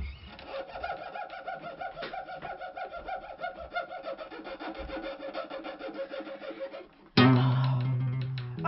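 Live acoustic guitar accompaniment: a soft, rapidly fluttering high trill, then loud strummed chords come in about seven seconds in.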